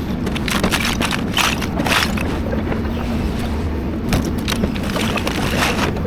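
Doosan 235 excavator's diesel engine running steadily under load while building debris crunches, cracks and scrapes in irregular knocks.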